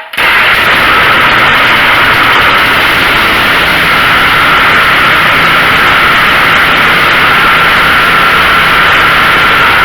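A 212cc single-cylinder Honda-clone engine, a Predator (Chongqing) on a log splitter, started with the choke on, catches right at the start and runs steadily and loudly. It holds its speed without faltering: a good-running motor with a freshly cleaned carburetor.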